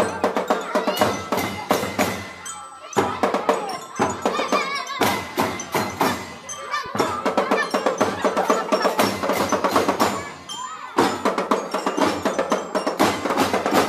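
A drum band playing: fast, regular drum strokes under a pitched melody from the band's melodic instruments, going on without a break.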